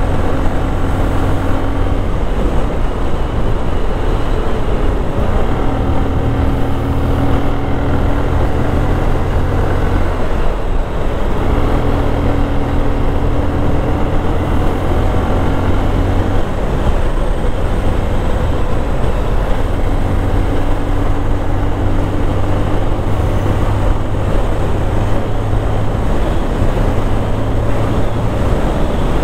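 Motorcycle engine running under way on a winding road, its note holding steady in stretches and dropping away and returning several times as the throttle is eased and reopened through the corners.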